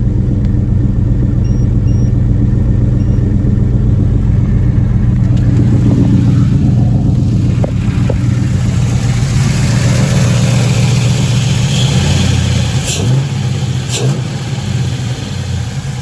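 LS V8 engine in a Chevy S-10 running rough, which the owner takes for a misfire, not running on all eight cylinders. About twelve seconds in the engine note shifts, and two sharp clicks follow.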